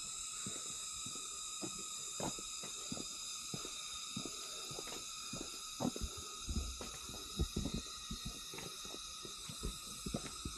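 Steady insect chorus in several high-pitched layers, with irregular low knocks and thumps that grow more frequent about halfway through.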